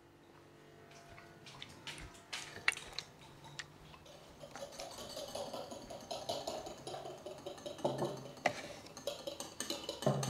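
Wire hand whisk beating instant coffee, sugar and water in a small ceramic bowl: quick light clinks of the wires against the bowl, a few separate taps at first, then steady rapid ticking from about halfway.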